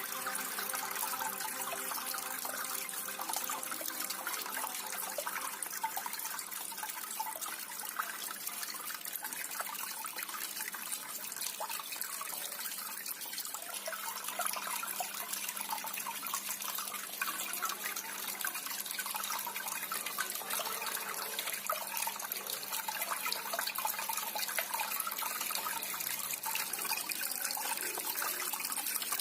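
Water running steadily and trickling down a small homemade cement waterfall fountain. A faint low hum joins about halfway through.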